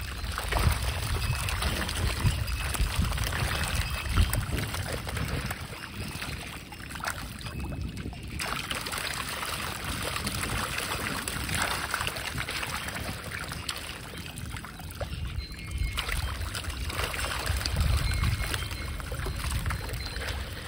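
A dense crowd of feeding carp thrashing at the water surface, making a continuous churning of many small splashes, with a low rumble underneath.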